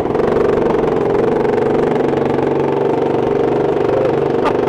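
Honda CRF300L's single-cylinder engine idling steadily just after starting, on its first run with a 550 Performance ECU tune and high-flow airbox lid. It echoes off the concrete of a parking garage.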